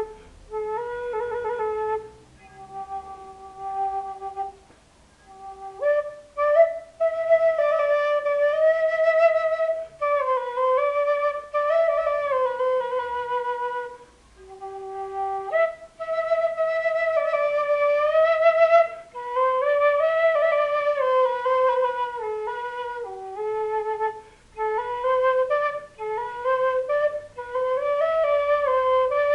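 Quena (Andean notched bamboo flute) playing a slow, free improvised melody, one note at a time. The phrases have sliding notes and vibrato, with short breaths between them.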